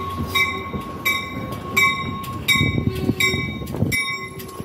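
NJ Transit commuter train, led by a Comet cab car, rolling slowly past the platform with rumbling wheel and running noise that swells and then drops off suddenly about four seconds in. Over it a bell rings steadily, about three strokes every two seconds.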